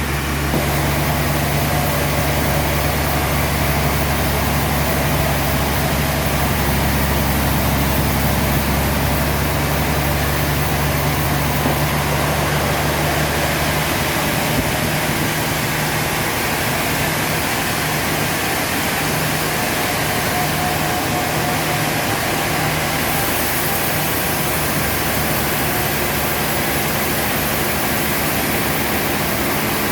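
Sawmill machinery running steadily, a loud even noise with a deep hum underneath that drops away about halfway through.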